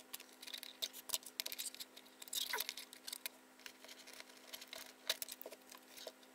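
Light, irregular clicks, taps and scuffs of small electronics being handled on a desk: a dot-matrix LED display unit, a small microcontroller board and a USB cable being moved and picked up.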